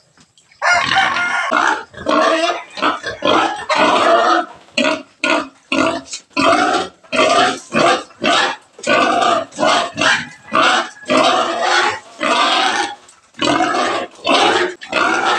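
Pregnant sow calling loudly in rapid repeated bursts, starting about half a second in and going on with only short breaks. She is an ill-tempered sow that tends to bite when being bathed.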